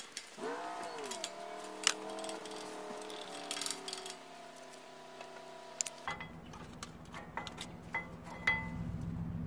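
Light metallic clicks and clinks of brake pads being pulled from and slid into a front disc brake caliper by gloved hands. Under them, a steady hum with several pitches starts about half a second in with a brief rise and fall and stops about six seconds in, then a low rumble takes over.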